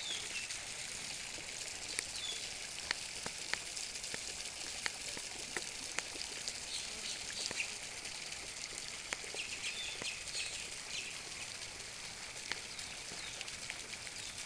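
Small birds chirping briefly now and then over a steady high hiss, with scattered faint clicks.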